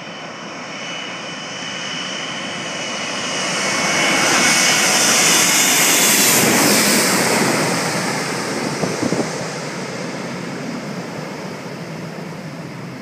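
Boeing 777 passing low overhead on final approach: jet engine noise with a high whine builds to a loud peak about five seconds in, drops in pitch as the plane goes over, then fades away.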